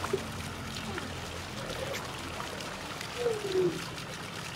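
Steady rush of running, splashing pool water, with a faint distant voice about three seconds in.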